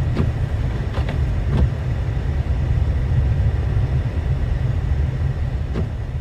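Steady low rumbling noise with a fainter hiss above it and a few faint clicks, of the kind a vehicle or wind makes.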